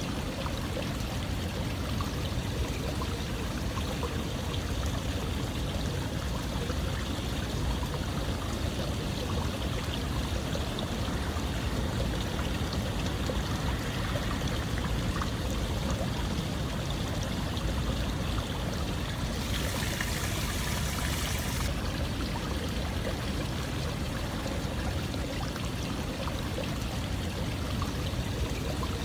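Steady running water, an even rushing flow with no breaks. About twenty seconds in, a thin high hiss briefly joins it for a couple of seconds.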